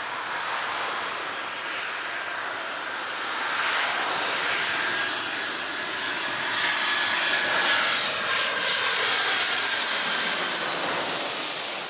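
Airbus A330's jet engines at takeoff power: a steady rushing noise with high whining tones, growing a little louder in the middle and starting to fade near the end.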